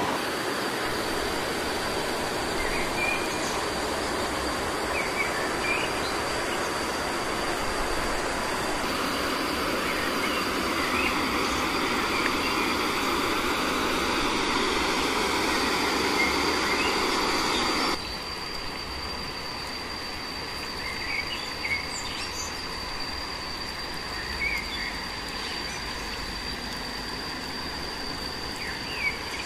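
Stream water rushing as a steady hiss with a thin, steady insect drone over it and a few short chirps; about two-thirds of the way through the water noise cuts off suddenly to a quieter outdoor background, while the insect drone and the occasional chirps carry on.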